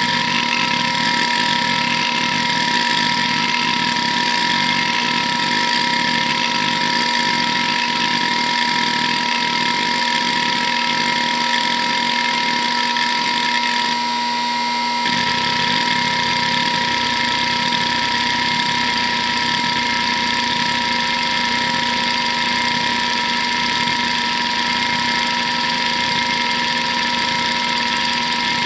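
Hitachi DK522C-10 hard drive spinning with a steady whine while its heads seek rapidly back and forth under a seek test, a fast continuous chatter of head movements. The seek chatter drops out for about a second midway, then resumes.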